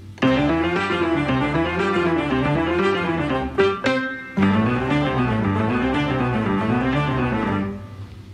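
Instrumental background music with guitar and strings, played in phrases that break off briefly twice.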